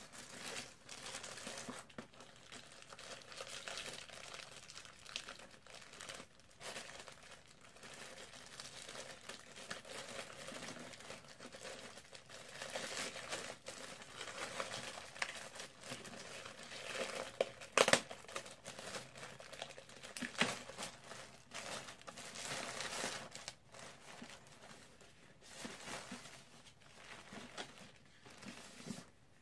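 Clear plastic packaging wrap crinkling and tearing as it is handled and pulled off a boxed product, with an irregular rustle throughout. A sharp snap stands out as the loudest sound about two-thirds of the way through.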